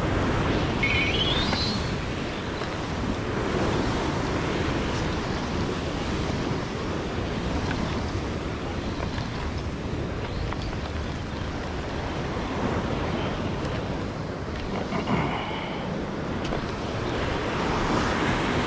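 Ocean waves surging against a rocky shore, with wind buffeting the microphone. A brief rising high squeak comes about a second in, and a shorter one near the end.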